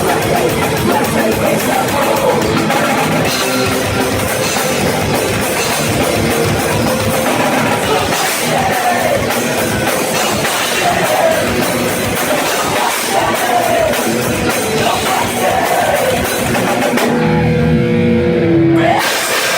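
Live rock band playing loud, with drum kit and guitars. Near the end the drums and cymbals drop out for about two seconds, leaving a low held chord, before the full band comes back in.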